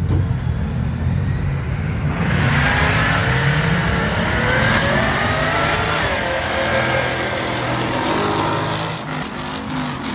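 Two drag cars launching down the strip, an old-school muscle car with a blower through its hood and a newer car. A low engine rumble at the line gives way, about two seconds in, to hard acceleration, the engine pitch climbing and dropping back through several gear changes. It is loudest as they pass and fades away near the end.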